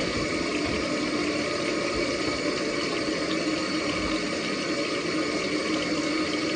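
Hot water running steadily from a tap, a continuous even rush of water.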